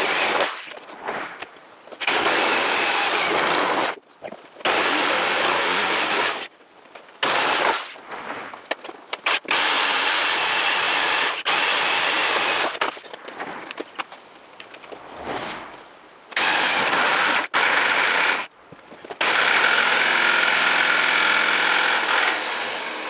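Ryobi corded electric drill boring holes through wooden wall framing. It runs in about eight bursts of one to four seconds each, stopping and starting between them. The last and longest burst, near the end, has a steady motor whine.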